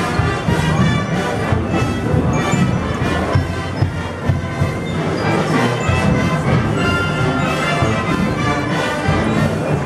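Procession brass band playing a slow march: brass with a steady percussion beat.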